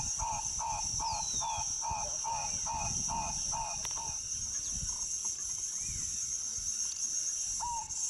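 Tropical forest ambience: a steady high insect chorus, with a bird repeating a short note about four times a second. The bird stops about four seconds in and starts again near the end, and there are a few other brief bird whistles.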